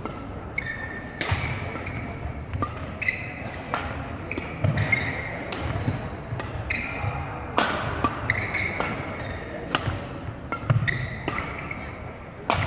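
Badminton rally on a wooden gym floor: sharp racket hits on the shuttlecock every second or two, short high squeaks of court shoes, and thudding footsteps as the players lunge and land.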